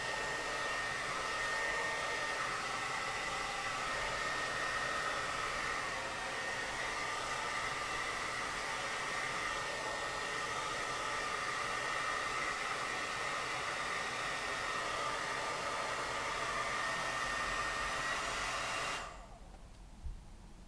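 Handheld hair dryer blowing steadily, a rush of air with a high whine, while curly hair is dried; it is switched off and cuts out suddenly near the end.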